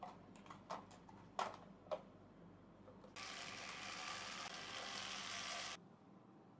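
A few faint clicks and taps of small hardware as an electric guitar's controls are put back together. They are followed, about three seconds in, by a steady hiss lasting a couple of seconds that starts and stops abruptly.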